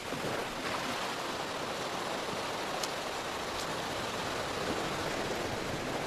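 Sea water washing over the rocks of the shore in a steady, unbroken rush.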